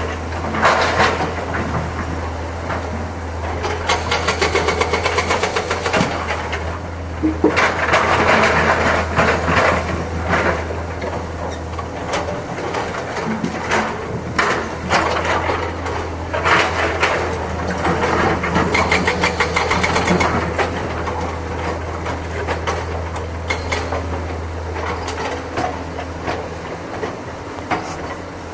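Excavator's diesel engine running with a steady low hum, with repeated clanks and knocks as it works, and two louder spells of rushing, scraping noise.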